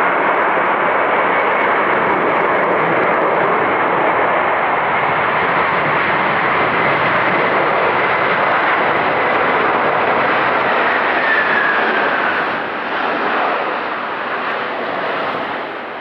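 Jet airliner landing close by: loud jet engine noise with a high fan whine that holds steady, then drops in pitch about eleven seconds in as the aircraft passes, and the noise eases off.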